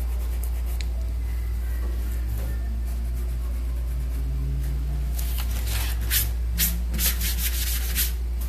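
A paintbrush with almost no paint on it is rubbed over a stencil in a run of short scratchy strokes, starting about five seconds in. This is dry-brush stencilling. A steady low hum runs underneath throughout.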